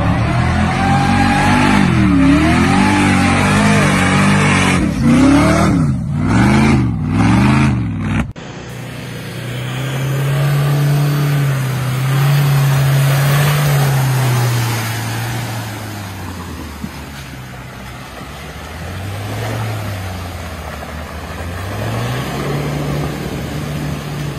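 An off-road vehicle's engine revved hard, its pitch climbing and falling sharply several times. Then a Land Rover Defender's engine pulls steadily through mud and water with splashing and tyre noise, the revs easing off and picking up again near the end.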